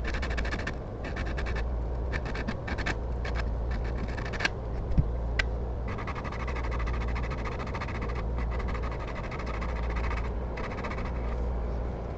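A steel chisel or plane blade being rubbed back and forth on a diamond sharpening plate: runs of rapid scraping strokes with short breaks, and a couple of sharp clicks about five seconds in.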